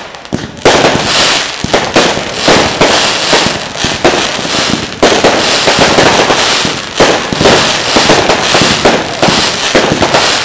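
Fireworks going off in quick succession, a dense run of overlapping bangs with no gap between them.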